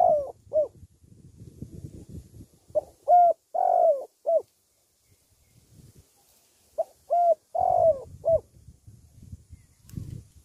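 Spotted dove cooing: the tail of one phrase at the start, then two full phrases about four seconds apart, each a short run of four coos with a longer, louder note in the middle. A low rustle comes and goes between the phrases.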